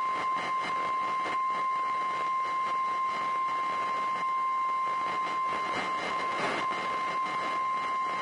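NOAA Weather Radio warning alarm tone, a single steady 1050 Hz tone held for several seconds over a hiss of radio static, cutting off abruptly near the end. It is the weekly test of the alarm that switches on specially built weather receivers.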